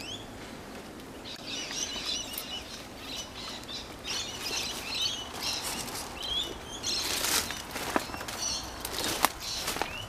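Small birds chirping, many short high calls, for the first half or so. From about seven seconds in, brushing and crackling of leaves, dry grass and twigs with sharp clicks, growing busier toward the end.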